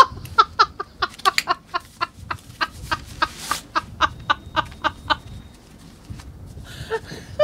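A woman laughing hard in a long run of short, rapid bursts, about four a second, dying away after about five seconds, with one more burst near the end.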